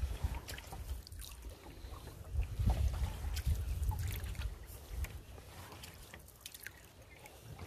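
Canoe paddling: water trickling and dripping off the paddle, with small splashes and clicks between strokes. A low rumble of wind on the microphone swells near the start and again around the middle.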